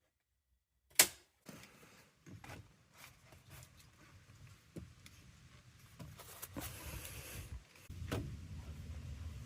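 A sharp click about a second in, then a string of smaller clicks and knocks of hands handling parts, typical of work on a heat pump's water filter, with a low rumble growing louder in the last few seconds.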